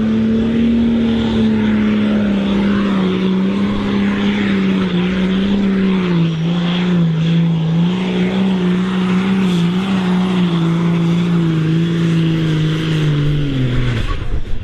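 Super Stock pulling tractor's turbocharged diesel engine running flat out under full load as it drags the weight sled, one strong steady drone. The note sags a little midway and drops away about fourteen seconds in as the pull ends.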